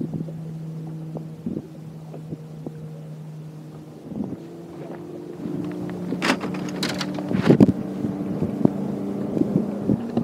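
A 36-volt electric trolling motor hums steadily, its pitch stepping up a little about four seconds in. A few sharp knocks on the boat deck come in the second half.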